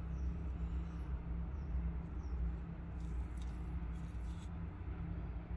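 Steady low background hum, with faint rustling of gloved hands sifting moist compost in a worm bin and lifting out worms, a few soft scrapes about three to four seconds in.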